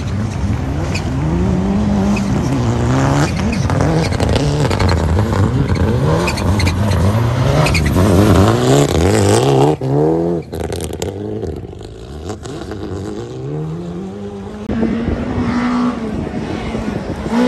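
Rally car engine revving hard and dropping off again and again through gear changes and slides on loose gravel, the Mitsubishi Lancer Evolution IX's turbocharged four-cylinder. About ten seconds in the sound drops away suddenly, and near the end a second rally car's engine is heard climbing in revs as it approaches.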